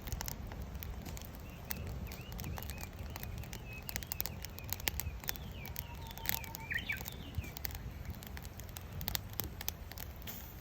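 Wood fire in a fire pit crackling and popping with a steady low rumble, burning hard on a chimney-effect draft. A small bird chirps in a quick series from about a second and a half in until past the middle.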